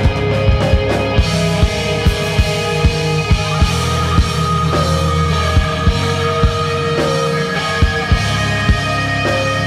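Live rock band playing: electric guitars holding sustained notes over a drum kit, with frequent sharp kick and snare hits.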